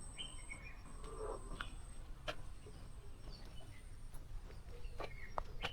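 Faint outdoor ambience with a few short bird chirps, a thin steady high-pitched tone, and a handful of sharp clicks, the last few close together near the end.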